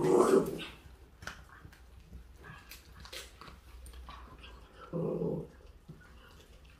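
A dog growling over food in two short bursts, one right at the start and one about five seconds in, with a few faint clicks between.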